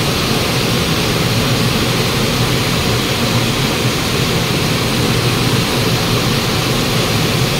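River water rushing over a small rocky cascade, a steady even rush.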